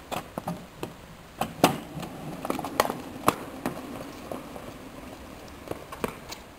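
Irregular sharp knocks and taps, about a dozen, the loudest about one and a half seconds in.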